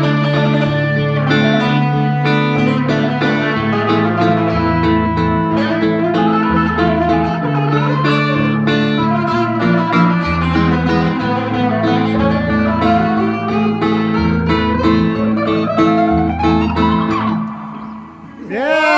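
A guitar solo played live: quick picked notes and rising slides over held low notes. It breaks off about a second before the end.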